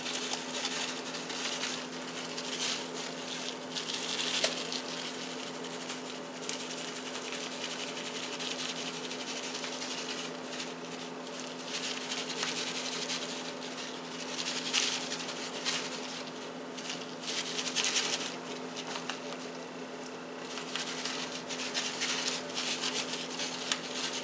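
Dry instant oatmeal being sprinkled and spread by hand over a layer of cake mix: intermittent soft rustling and scratching, over a steady low hum.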